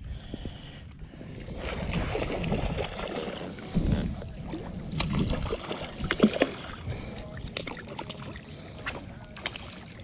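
Knocks, clicks and rustles of fishing tackle being handled in a small boat, over a noisy mix of wind and water, louder for a few seconds around the middle.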